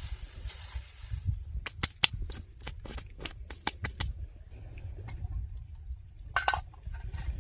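Dry wood cracking in a string of sharp, irregular snaps, with a short burst of them near the end, over a low rumble.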